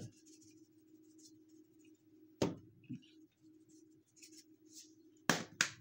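Seasoning salt shaken from a shaker container over a raw chuck roast: a faint scattered rattle of grains, with a sharp tap about two and a half seconds in and two more close together near the end.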